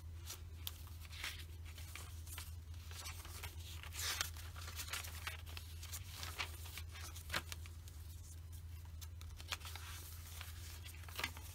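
Paper pages of a handmade junk journal being turned and handled: irregular rustles and crisp flicks of paper, with a few sharper ones. A steady low hum runs underneath.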